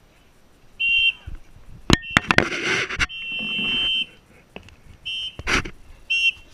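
A whistle blown in repeated blasts: a short one about a second in, a longer one around three to four seconds, then two quick short ones near the end. A few sharp cracks and noisy bursts come between the blasts around two seconds in and again past five seconds.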